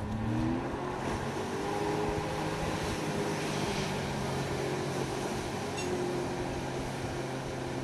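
Watercraft engine pulling under way: it speeds up with a rising pitch at the start, then runs steadily, over a hiss of wind and water.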